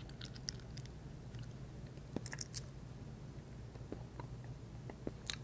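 A person quietly eating a soft Duvalin cream candy: faint, scattered small clicks from the mouth and from handling the candy's small plastic package, over a steady low hum.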